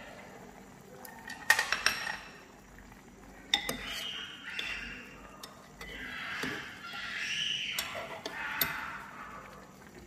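A metal utensil clinks and knocks against a cooking pot several times as pieces of silken tofu are put into the simmering kimchi soup. The loudest clink comes about one and a half seconds in.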